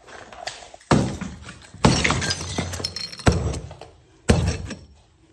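Sledgehammer blows smashing a brick fireplace: four heavy strikes about a second apart, each followed by a trailing clatter of breaking brick.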